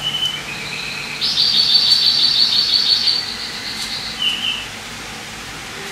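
A bird singing: a few clear whistled notes, then a fast, rapidly pulsing trill lasting about two seconds, and a short chirp near the end, over a steady low hiss.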